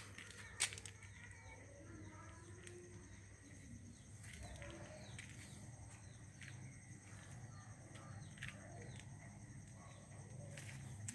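Faint birds chirping: short falling chirps repeated at uneven intervals over a low steady hum, with one sharp click just over half a second in.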